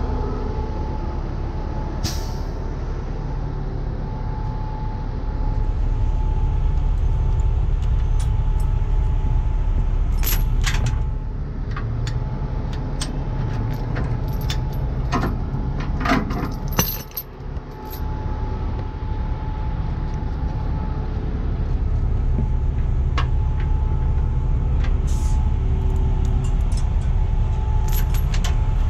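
Heavy tow truck's diesel engine running steadily, stepping up in level about five seconds in. Metal chains clink and rattle in short clusters near the middle.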